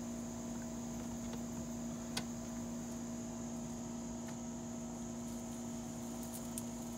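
Steady low hum under a constant high drone of insects such as crickets, with one small click about two seconds in.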